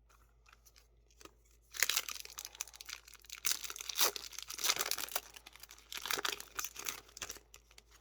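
A Yu-Gi-Oh booster pack's wrapper being torn open and crinkled by hand: a few small clicks, then about five seconds of dense, irregular crackling and tearing.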